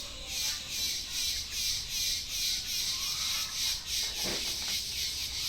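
A dog gnawing and crunching on a coconut's fibrous husk, a steady crackly chewing rhythm of about four bites a second.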